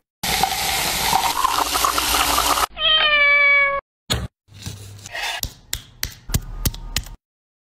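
A loud, even rush of noise that cuts off abruptly after about two and a half seconds, then a cat meows once, a long call that falls slightly in pitch. A string of sharp wooden knocks follows as a wooden meat mallet taps the cutting board and the meat.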